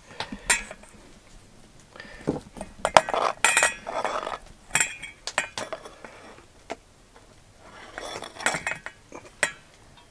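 Knife cutting fried pork sausages on a plastic cutting board: a string of irregular knocks and taps of the blade on the board, with short scrapes and metal clinks.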